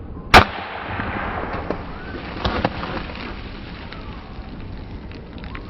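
A single sharp shot from a Schofield CO2 BB revolver, followed by a hissing spray that fades over about two seconds. Two lighter clicks come about two seconds after the shot.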